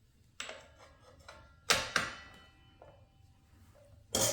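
Sharp metallic clinks, four of them, each with a brief ring, as the metal retainer washer is fitted onto the saw arbor against the miter saw blade; the loudest comes about two seconds in.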